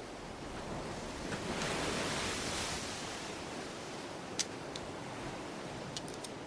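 Surf washing onto a beach, a wave swelling and breaking about two seconds in, then a steady wash. A few light clicks come in the second half.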